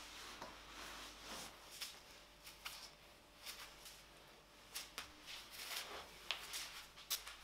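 Quiet rustling of clothing and slippers, with a scatter of light clicks and taps: fluffy sheep-wool slippers being put on and shifted on a tiled floor.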